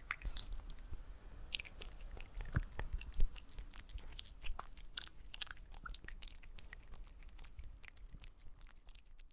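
Cat eating: a steady run of quick, irregular chewing clicks, with one louder click about three seconds in.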